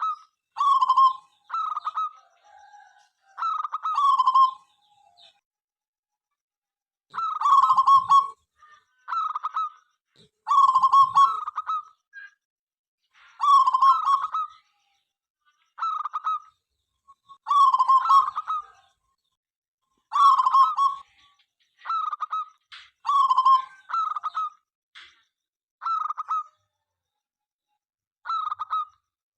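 Zebra dove (perkutut) cooing: short rippling phrases of rapid coo notes, repeated every one to two seconds with a brief pause near the start.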